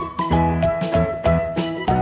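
Cheerful background music with a steady beat of about three strokes a second under a bright, plucked-sounding melody.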